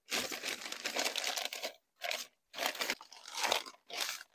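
Plastic sheeting from an emptied potting-soil bag crinkling as it is pressed and smoothed into the bottom of a large plastic planter: one long rustle, then several short ones.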